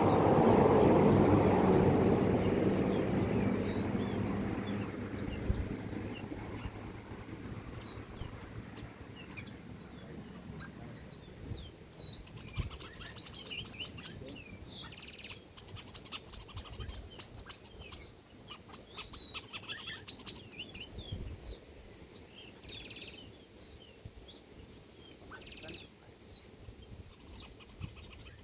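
A motor vehicle driving away, its noise fading over the first few seconds, then a flock of small birds chirping busily, the chirping thickest about halfway through.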